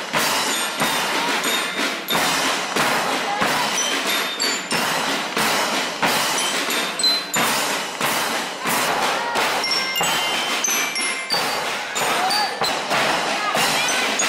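A children's marching band rehearsing: bell lyres play a tune in short ringing notes over a steady beat of bass and snare drums.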